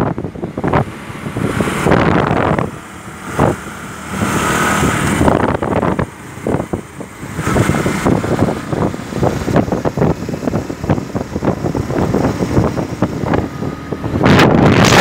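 Motorcycles running at road speed, with heavy wind buffeting the microphone in irregular gusts.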